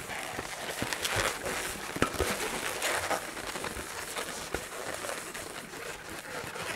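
Latex modelling balloon being twisted by hand: rubber rubbing and creaking against itself and the fingers, with a few sharp clicks along the way.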